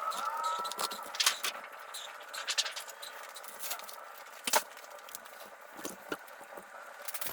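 Irregular rustling and light clicks and clinks, as of aluminium kit parts and packing being handled. The sharpest click comes about four and a half seconds in.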